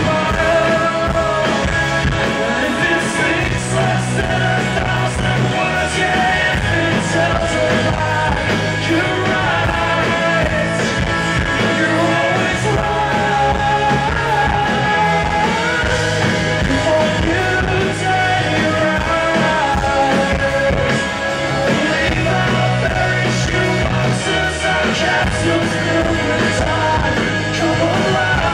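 Live rock band playing a song: electric guitar, drums and keyboard, with a man singing lead. Loud and continuous, with no break.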